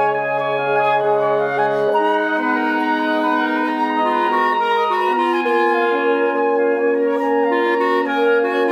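Woodwind quintet of flute, oboe, clarinet, bassoon and French horn playing long sustained notes that overlap into slowly shifting chords, the voices changing pitch one at a time. A low note drops out about two seconds in.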